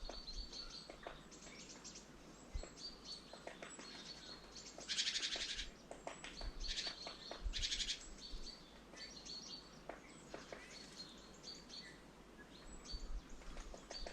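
Small songbirds calling at a winter feeder: short high chirps repeating throughout, with two harsh buzzy chatters about five and seven and a half seconds in.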